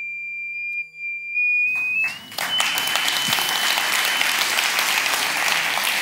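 High pure tone from a sound driver vibrating a sand-covered metal Chladni plate, fed by a frequency generator; it steps up in pitch about two seconds in. Audience applause then breaks out and covers the tone.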